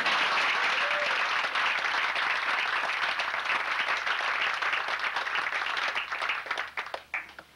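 Audience clapping: dense applause that breaks up into a few scattered claps near the end and then stops.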